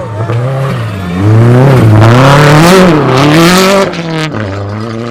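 Rally car engine at full throttle, revving up and dropping back through gear changes several times, loudest for a few seconds in the middle as it passes close. A short sharp crack follows soon after.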